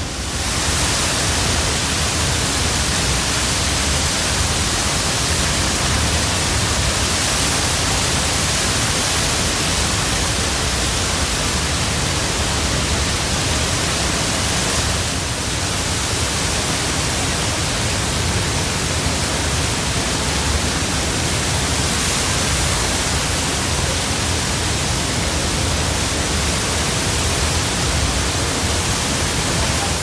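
Loud, steady rush of Niagara's Horseshoe Falls pouring past a tunnel portal directly behind the falling water.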